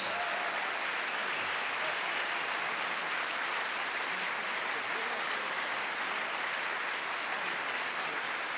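Concert audience applauding, a dense, even clapping at a steady level.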